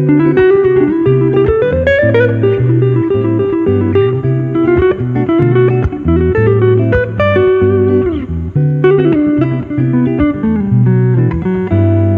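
Background music: an electric-guitar-led instrumental with a bass line and sliding guitar notes.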